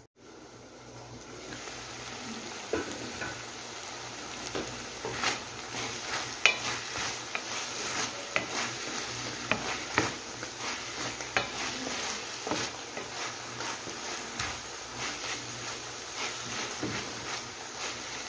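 Diced chicken and bell peppers sizzling in a stainless steel pan, stirred with a wooden spatula that scrapes and knocks against the pan at irregular moments. The sizzle swells over the first couple of seconds, then holds steady.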